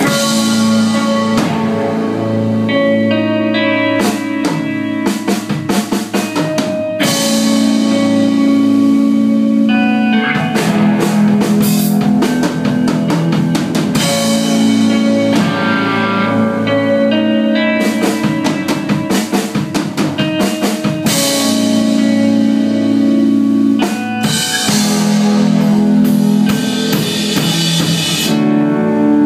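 Post-rock band playing live: sustained electric guitar chords and bass over a full drum kit. The drums come in about a second in, with a quick run of hits and then cymbal crashes every few seconds.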